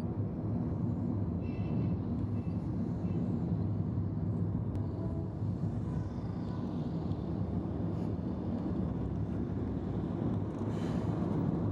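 Steady low rumble of a motor vehicle running, with road noise.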